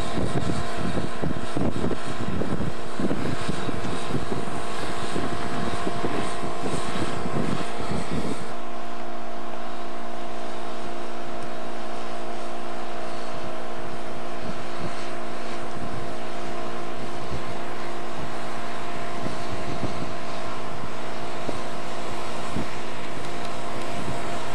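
Self-propelled railroad track maintenance machines, with their diesel engines running in a steady drone. In the first part there are many low knocks and clunks. About a third of the way in the sound changes abruptly: the knocking drops away and a steady engine hum remains.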